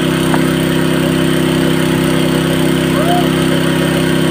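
A small engine running steadily at an unchanging pitch.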